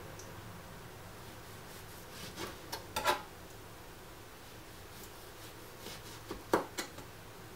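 Kitchen knife cutting lemons on a plastic cutting board. There is a short run of knocks of the blade against the board about two to three seconds in, and another near the end, the loudest of them.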